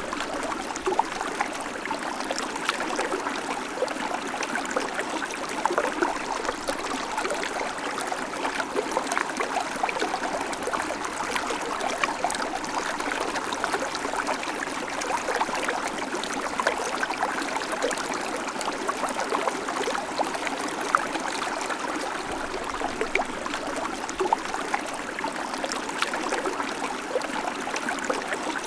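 Babbling creek: water running over stones in a steady, even flow, with many small splashes and gurgles.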